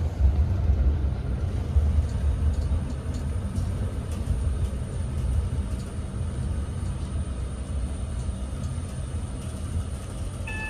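Otis Spec Eco passenger elevator car travelling down one floor: a steady low rumble of the car in motion that eases slightly toward the end. Just before the end a short electronic tone sounds as the car arrives at the floor.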